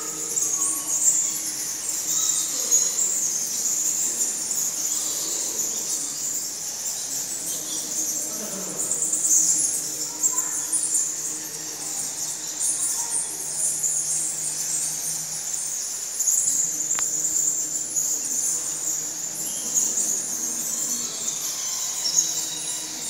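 Insects chirring steadily at a high pitch, with a low steady hum underneath and a single sharp click about three-quarters of the way through.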